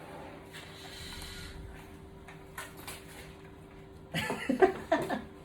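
Scattered light clicks and knocks of small objects being handled, over a faint steady hum, with a short burst of a young child's voice about four seconds in.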